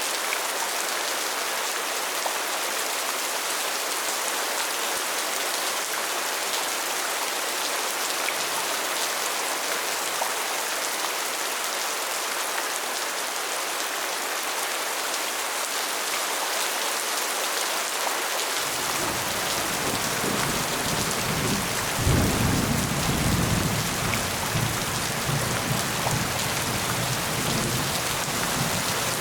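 Steady heavy rain hissing, with a low rumble of thunder coming in about two-thirds of the way through, swelling to its loudest a little later and rolling on to the end.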